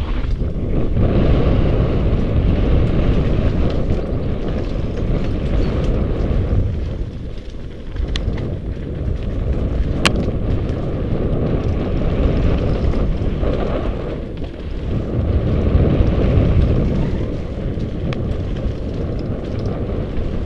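Wind rushing over a bike-mounted Contour+ action camera's microphone during a fast downhill mountain-bike descent, mixed with tyre and frame rumble from the dirt trail; the noise swells and eases with speed, with a sharp knock about halfway through.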